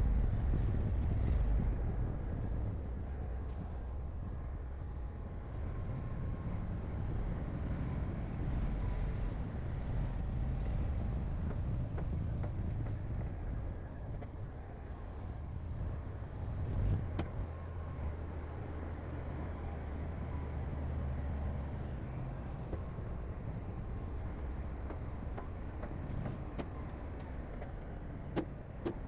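Heavy construction machinery's diesel engine running steadily at low pitch, with a brief swell in level about halfway through and a couple of sharp knocks near the end.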